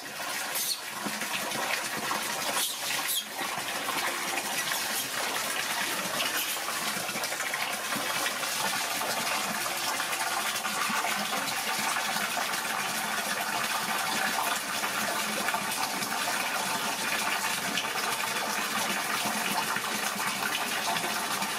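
A steady stream of water pouring into a large stainless-steel basin already full of water, a continuous splashing gush.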